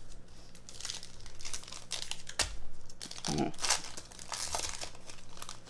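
Foil wrapper of a Topps Chrome trading card pack crinkling and tearing in fits and starts as it is pulled open, the pack resisting the rip, with a sharp snap about two and a half seconds in.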